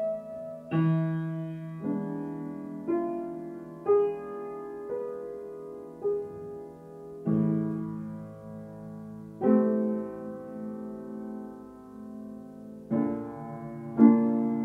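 Slow solo piano music: single notes and chords struck roughly once a second, some held for a couple of seconds, each ringing on and fading.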